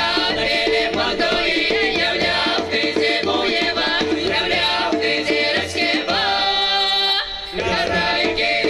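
Mordovian folk song: an ensemble of voices singing over steady hand percussion, with a long held chord about six seconds in that breaks off briefly before the song goes on.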